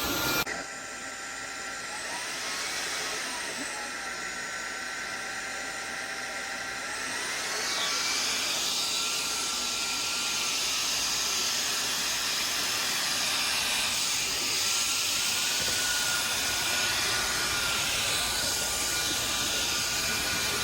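Cordless stick vacuum cleaner running with a high motor whine. The whine drops in pitch about two seconds in, then climbs back up around eight seconds and runs louder from there on.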